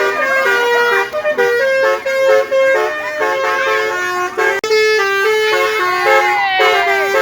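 Basuri telolet multi-tone horns playing a tune: loud steady notes that step between a few pitches every fraction of a second, with a brief break about halfway through.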